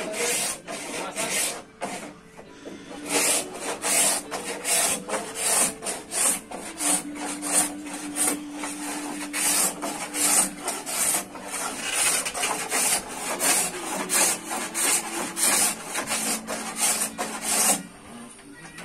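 A hand tool rubbed and scraped along wood in brisk, even strokes, about one and a half a second, as the wooden bow of a plywood boat is shaped by hand. The strokes are irregular at first and settle into a steady rhythm about three seconds in.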